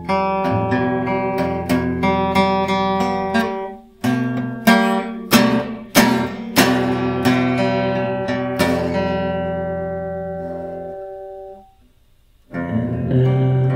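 Acoustic guitar playing a blues passage: a run of sharply plucked notes and chords, then a last chord left ringing until it fades out. After a short pause the playing starts again near the end.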